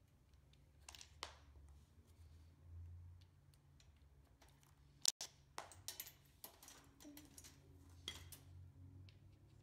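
Faint clicks and light metallic taps of hands fitting washers, a spring and a wheel onto the rear axle of a wire utility shopping cart, with one sharper click about five seconds in and a cluster of taps after it. A faint low hum lies underneath.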